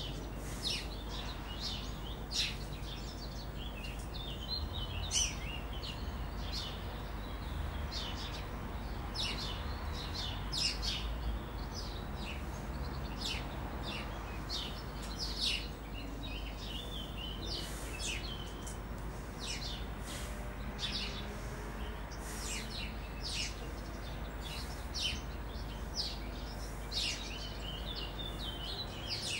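Small birds chirping outside: many short, quick high chirps one after another, over a steady low hum.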